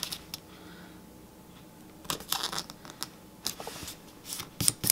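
Fingers pressing and rubbing a paper sticker strip down onto a planner page: a few short rustles and scrapes about two seconds in, then a quick run of scrapes and taps near the end, smoothing out an air bubble.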